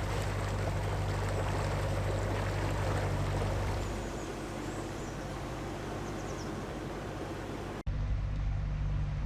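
Narrowboat diesel engine running steadily under an even hiss of rain, with a few faint bird chirps. The engine hum drops back about four seconds in, and the sound cuts out briefly near the end.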